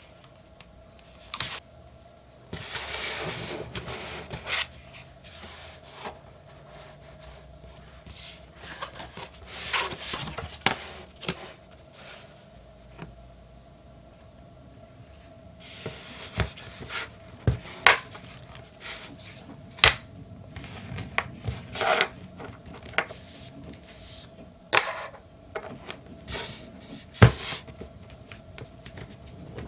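Close-up handling of art supplies on a hard tabletop: paper and packaging sliding and rubbing, then a run of sharp clicks and taps as watercolor brushes are handled in a woven fabric brush case. A faint steady hum sits underneath.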